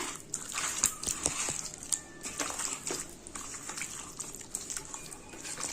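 Chicken pieces being mixed in a thick yogurt and spice marinade: soft, irregular wet squelching with small clicks.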